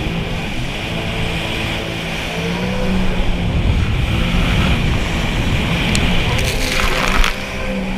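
Sea-Doo jet ski engine running under way, with wind and water rushing past; the engine pitch rises a little a couple of seconds in. About six and a half seconds in, a hiss of spray comes up and cuts off suddenly just after seven seconds.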